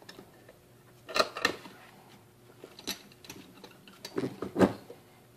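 Several light metallic clicks and knocks, irregularly spaced, as nails are set between the jaws of a steel bench vise and clamped.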